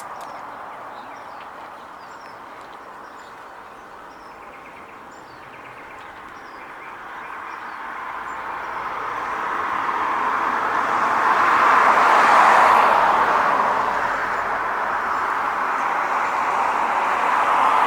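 Small birds chirping while a vehicle approaches with a rising rush of road noise that is loudest about two-thirds of the way through, then eases slightly.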